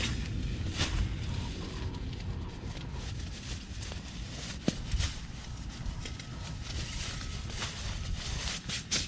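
Nylon fabric rustling and crinkling as a bivy sack and its tent pole are pulled out of their stuff sack, with irregular clicks and knocks from handling.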